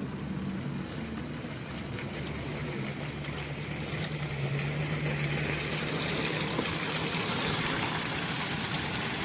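A steady low engine-like hum with a hissing noise that grows louder about four seconds in.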